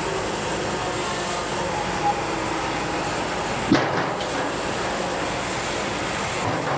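Wood-Mizer LT70 wide-head band sawmill running steadily as its band blade is fed slowly through a knotty log, with one sharp knock a little over halfway through.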